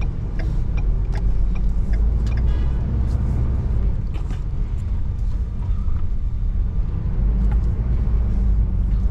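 RV motorhome driving slowly, with a steady low engine and road rumble. A few scattered clicks and a brief rattle come through over it.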